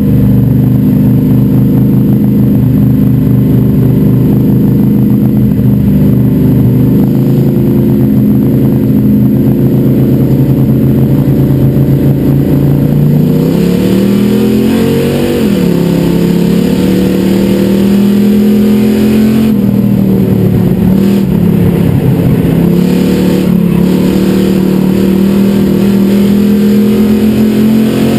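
Super Street race car's engine heard from inside its cockpit, running at a steady low pitch, then revving up about halfway through, dipping briefly and holding a steady higher pitch.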